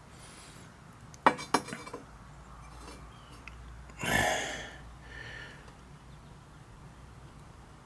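Glaze-fired stoneware pots clinking against each other and the kiln shelf as they are handled and lifted out of the kiln: two sharp clinks about a second and a half in, then a longer, louder scraping sound about four seconds in.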